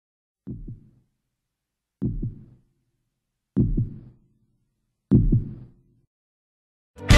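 Four deep, low thuds about a second and a half apart, each louder than the last, a sound effect with silence between them. Loud rock music cuts in at the very end.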